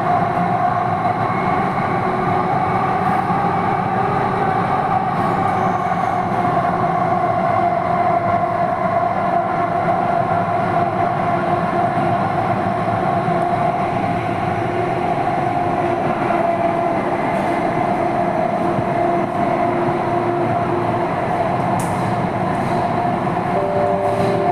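Inside a Delhi Metro Pink Line carriage on the move: the steady running noise of the train, a rumble of wheels on track with a constant high hum over it.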